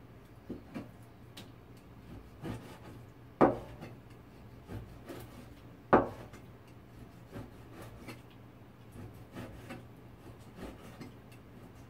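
A dull Chinese cleaver chopping pork belly on a plastic cutting board: irregular chopping strokes, two of them much louder, about three and a half and six seconds in.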